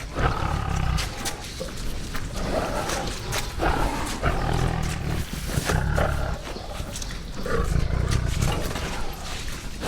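Tiger roaring: three long, low roars, one at the start, one in the middle and one near the end.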